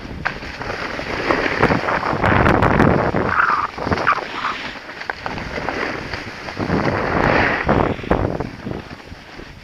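Wind buffeting the microphone of a skier's camera, with a rushing hiss of skis on snow that swells and fades unevenly.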